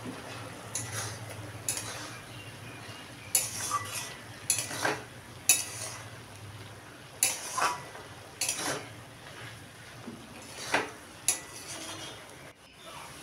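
A metal spatula scraping and clinking against a metal kadai as a thick banana-flower and potato curry is stirred and turned, in irregular strokes about a second apart.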